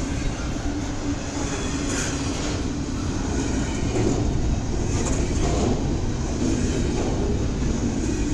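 CSX double-stack intermodal freight train rolling past, its cars running steadily on the rails with a continuous rumble and an occasional click of wheels over the rail.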